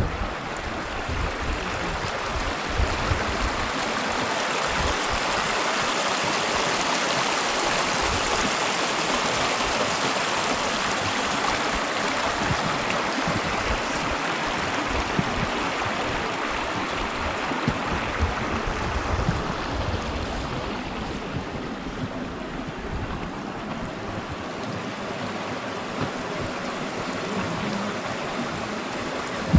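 Shallow stream of grey volcanic hot-spring runoff running over rocks: a steady rush of water that swells a little and eases slightly after about two-thirds of the way through.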